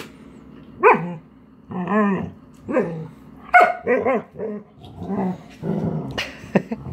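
Dog 'talking' back in protest at sticky tape: a string of short calls, about one a second, each bending up and down in pitch, some drawn out and wavering, with a sharp louder sound near the end.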